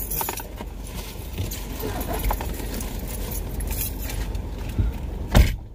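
Rustling and jangling inside a car as a passenger climbs out with the door open, letting in outside vehicle noise. Near the end a car door slams shut once, loudly, and the outside noise drops away.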